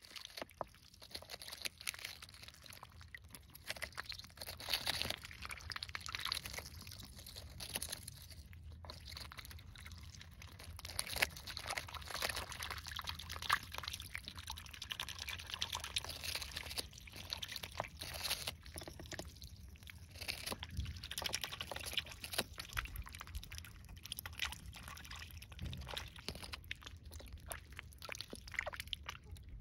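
Call ducks feeding in a small pool of water: bills dabbling and splashing with wet dribbling sounds, mixed with irregular crisp crunches as they bite and tear at a cabbage leaf.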